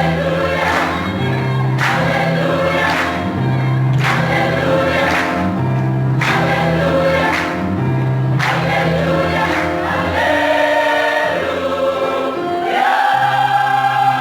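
Choir singing in parts, holding chords over a bass line that steps between notes. About thirteen seconds in, the voices move to a new, louder sustained chord.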